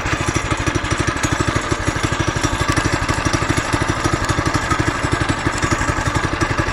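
Trail Master MB200 mini bike's 196cc single-cylinder four-stroke engine idling steadily, an even, rapid putter of exhaust pulses.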